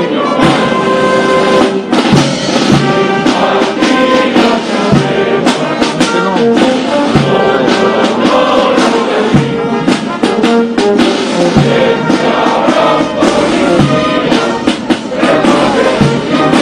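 Brass band playing a slow ceremonial hymn with regular drum strokes, with voices singing along.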